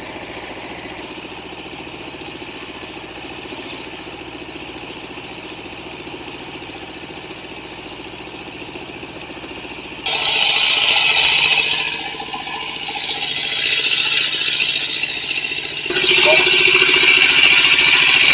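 Fishing boat's engine running steadily while trolling. About ten seconds in, a much louder rushing noise suddenly takes over.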